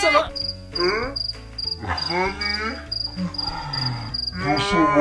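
Cricket chirping sound effect: a thin, high chirp repeated about three times a second, stopping shortly before the end.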